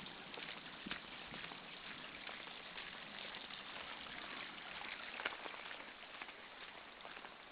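Heavy rain falling: a steady hiss of water with many sharp taps of drops striking the ground.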